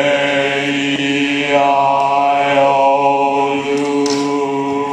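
The bass section of a choir singing one long held low note together.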